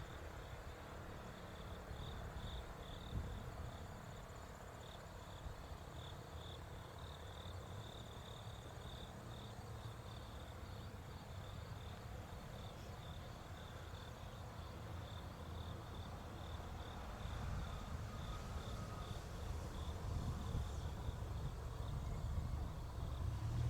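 Insects chirping outdoors in a fast, steady pulsing trill, over a low rumble that grows louder near the end.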